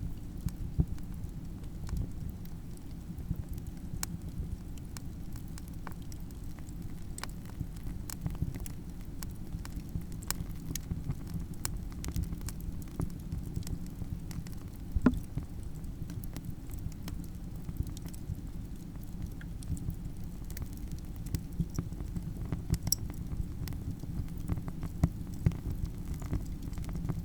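Campfire crackling: a steady low rumble of burning wood with frequent sharp pops and snaps, one louder pop about halfway through.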